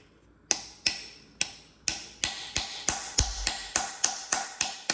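Hammer tapping a metal wedge-type separator tool into the sealant seam between the Porsche 987 engine's sump cover and the case, to break the seal. There are about fourteen sharp strikes, roughly three a second, each with a brief metallic ring.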